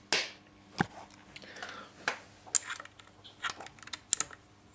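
A .223 cartridge being handled at a reloading press: a series of sharp little clicks and clacks, about half a dozen, with a short scrape in between.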